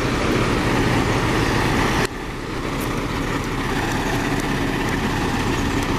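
Renault Premium truck's diesel engine idling steadily while it warms up. The sound drops suddenly in level about two seconds in, then carries on.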